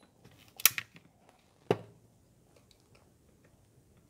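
Armorer Works Wind Velocity HX2401 airsoft pistol dry-firing as a trigger pull gauge draws its trigger: a sharp double click about two-thirds of a second in, then another click about a second later, with faint handling ticks after.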